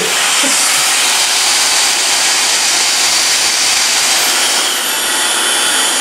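Dyson Supersonic hair dryer with its styling concentrator nozzle, blowing cold air on a high power setting: a steady rush of air with a faint high whine.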